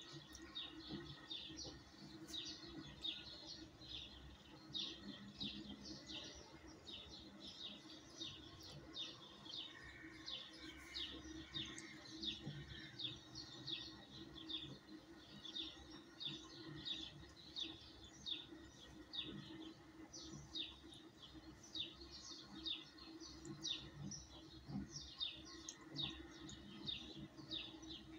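Small birds chirping: a steady stream of short, high chirps, a few each second, over a faint steady hum.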